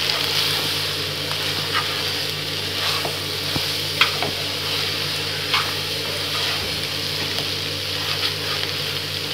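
Instant noodles sizzling in a non-stick kadai while a spatula stirs and tosses them, with a few short taps and scrapes of the spatula against the pan. A steady low hum runs underneath.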